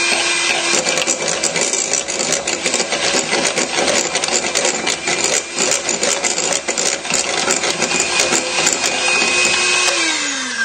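Electric hand mixer whisking egg yolks with sugar and cornflour in a bowl: the motor whines at a steady speed while the beaters rattle rapidly against the bowl. Near the end the motor winds down and its pitch falls as it stops.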